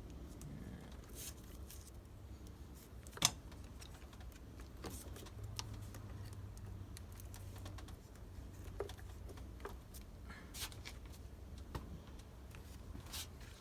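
Scattered small clicks and taps of battery terminal hardware and wire being handled and fitted, with one sharper knock about three seconds in, over a faint low hum.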